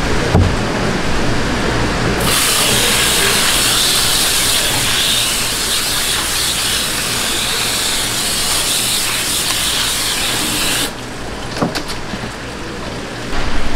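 Water hose spraying onto a flatfish on a wooden cutting block to rinse it: a strong, even hiss that starts about two seconds in and cuts off abruptly about eleven seconds in.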